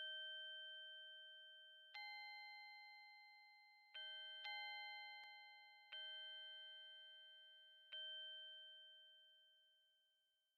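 Faint, slow bell-like chime notes, struck about once every two seconds with two close together around four and a half seconds in, each ringing on and fading away; the last dies out near the end.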